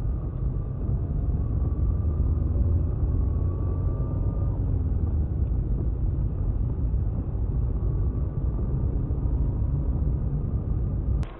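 A car driving, heard from inside the cabin: a loud, steady low rumble of engine and road noise with a faint whine. It cuts off with a click near the end.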